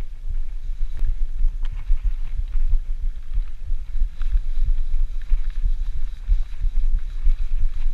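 Wind buffeting a GoPro's microphone as a mountain bike rolls along dirt singletrack: an uneven, gusting low rumble, with scattered light clicks and rattles from the bike over the trail.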